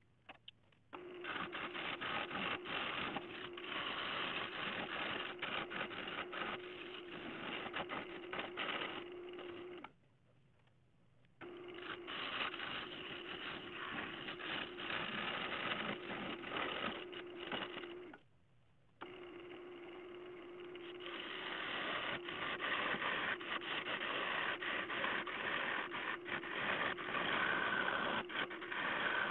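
Wood lathe spinning a dead-ash bowl blank while a turning tool cuts into it: a dense scraping with a steady hum underneath. It cuts out briefly twice, about ten seconds in and again near eighteen seconds.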